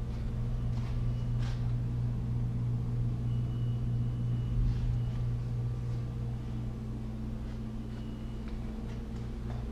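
A steady low mechanical hum, with a few faint clicks and, about three seconds in, a faint brief high tone.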